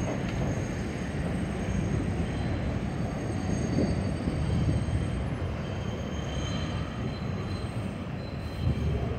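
R142 subway train running on the elevated line: a steady rumble of wheels on rail, with a faint high wheel squeal.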